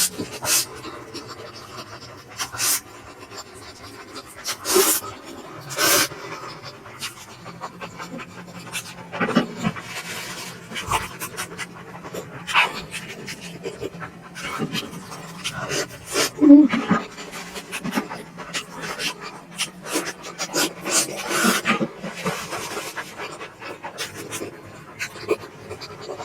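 Close-miked eating sounds of someone eating momos (steamed dumplings): wet chewing and mouth smacks with irregular sharp clicks.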